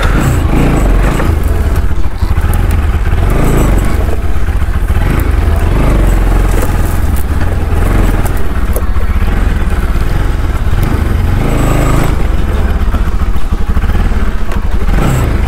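Bajaj Pulsar NS200's single-cylinder engine running under varying throttle as the motorcycle is ridden slowly over rough dirt, with a few knocks from the bike over the bumps.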